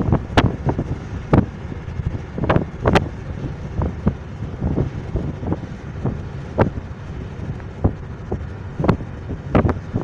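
A car in motion, heard from inside: a steady low road rumble, broken by frequent irregular buffets of wind on the microphone.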